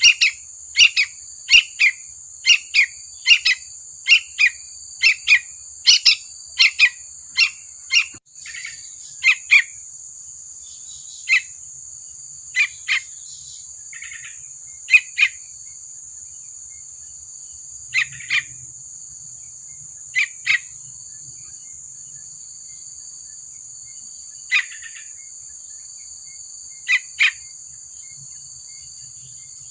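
Juvenile yellow-vented bulbul (trucukan) calling: short, sharp chirps repeated about twice a second, then more sparsely, one every second or two. A steady high-pitched hum runs underneath. About eight seconds in the sound cuts out for an instant.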